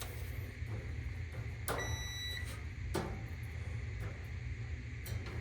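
Multimeter continuity beep, one steady high tone lasting under a second, as the probes touch the dryer's heating element. The beep shows the element has continuity and is good. Sharp clicks from the probes sound twice over a steady low hum.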